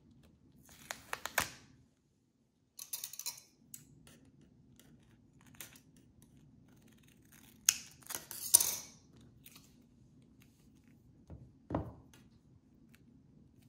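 Scissors cutting through duct tape in several short bursts, the loudest a little past halfway, with a soft knock near the end.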